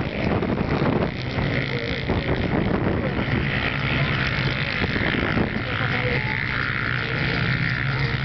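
Engines of studded ice-racing quads (ATVs) running hard at speed as the pack races past and pulls away.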